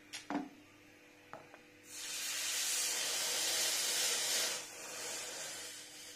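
Flame-heated steel knife blade plunged into water, hissing loudly for about two and a half seconds and then dying away as it is quenched to harden the steel.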